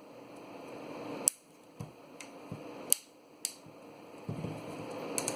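A JBL portable speaker's plastic casing being worked apart by hand: a handful of scattered sharp clicks and small knocks, the loudest about a second in and around three seconds in.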